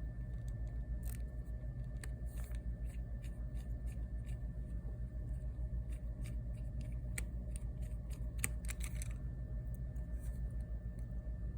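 Scattered small clicks and ticks of hand tools and phone parts being handled during a phone repair, over a steady low electrical hum; the clicks come thickest a little past the middle.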